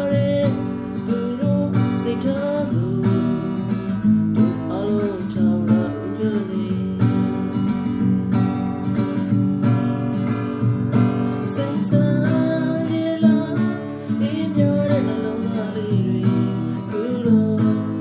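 Acoustic guitar strummed by hand in a steady rhythm, playing chords.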